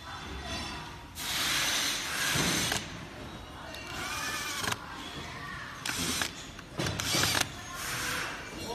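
12 V cordless drill-driver running in several short runs, the longest about a second and a half, driving screws into the side cover of an electric scooter's hub motor.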